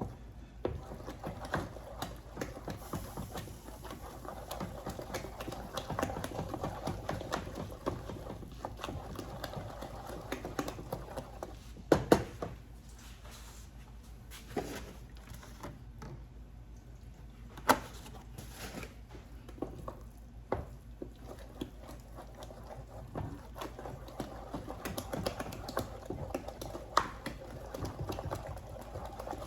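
A utensil whipping and folding mashed potatoes in a pot: soft squishing and many small clicks of the utensil against the pot, with a couple of sharper knocks about twelve and eighteen seconds in.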